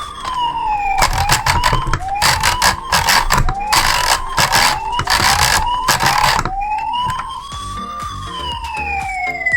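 Siren wailing, its pitch rising and falling in slow sweeps. In the middle it cycles faster, about once a second, with loud bursts of noise over it, then returns to a slow wail near the end.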